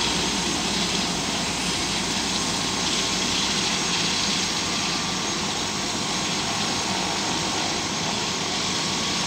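Turbine helicopter running on the ground, a steady whine over an even rushing noise.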